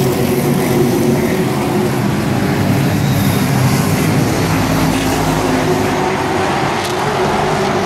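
A field of short-track racing trucks running at speed, several engines sounding together in one loud, steady blend with overlapping engine tones.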